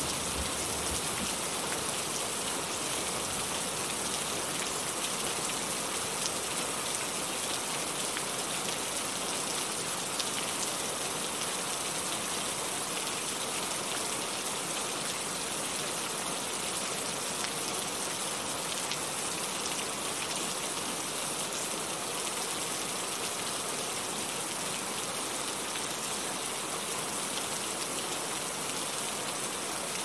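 Waterfall cascading into a pool: a steady, even hiss of falling and splashing water.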